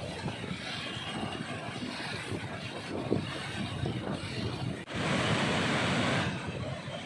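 Turbulent floodwater rushing and churning in a steady roar, with wind buffeting the microphone. About five seconds in, the sound cuts to a louder, hissier rush of water pouring through open barrage gates, which eases again near the end.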